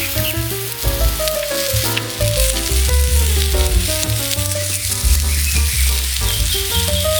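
Food frying on a hot iron griddle, a steady sizzle, under background music with a melody and a bass line.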